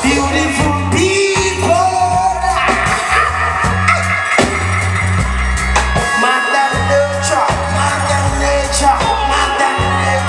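Live band playing: a singer over a repeating electric bass line, guitars and drum kit.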